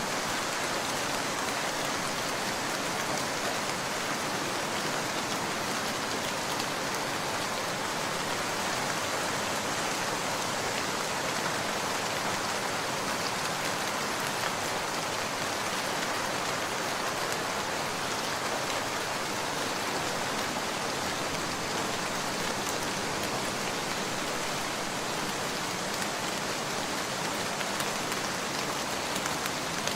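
Steady rain falling, an even hiss of many drops without let-up.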